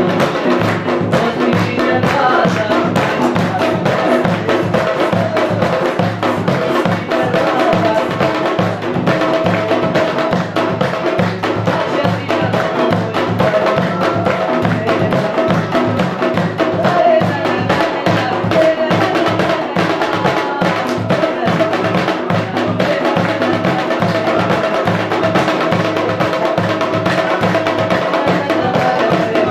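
Chitrali (Khowar) folk dance music, drums beating a fast, even rhythm under a held melody line.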